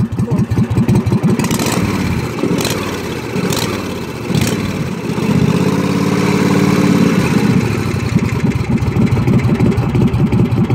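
Kohler engine on a Craftsman riding mower idling very low with a slow, uneven beat while its idle speed is screwed down. About five seconds in it smooths out and speeds up for a couple of seconds, then drops back to the slow beat. A few sharp clicks come in the first half.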